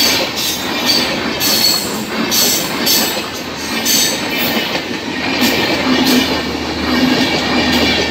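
Passenger train of LHB coaches rolling past close by at speed: a steady rumble of steel wheels on the rails, broken by repeated clattering as the wheel sets run over the rail joints.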